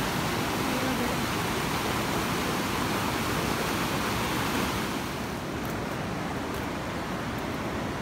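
Rain-swollen creek running high: a steady rush of water that drops a little in level and loses some of its hiss about five seconds in.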